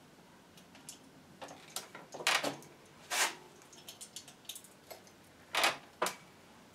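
Front wheel with its electric hub motor being handled and fitted toward the bike fork: four short scrapes and knocks of metal and rubber, with light ticks in between.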